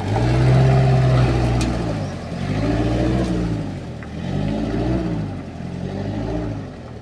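Mazda R2 diesel engine revved in about five short throttle blips, each rising and falling in pitch, getting a little quieter toward the end.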